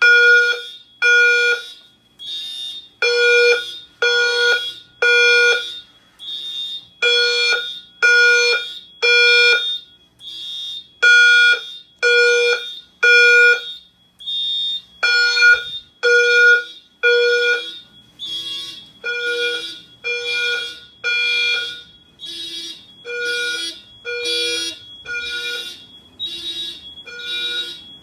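Simplex fire alarm horns sounding the temporal-three evacuation pattern: three blasts about a second apart, then a pause, over and over. A second set of horns of a lower pitch sounds out of step with them from partway through, and a steady high-pitched tone runs beneath.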